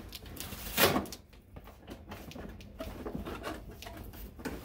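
Cardboard retail box being opened by hand: a sharp scrape as the lid flap is pulled free about a second in, then quieter rustles and taps of the cardboard flaps being folded back.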